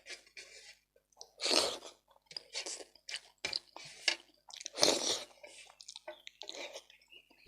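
Close-miked chewing and wet mouth noises of a person eating, in irregular short bursts, with two louder ones about one and a half and five seconds in.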